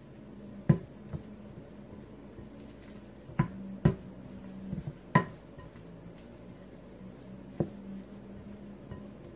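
A spoon stirring cooked red lentils and bulgur in a glass mixing bowl, striking the glass now and then with about six sharp knocks spread unevenly through the stirring.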